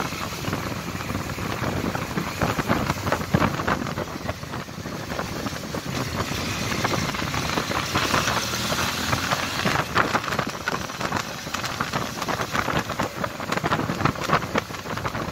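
Wind rushing and buffeting over the microphone on a moving Suzuki V-Strom DL650 motorcycle, with its V-twin engine running underneath. The buffeting comes in irregular gusts and crackles.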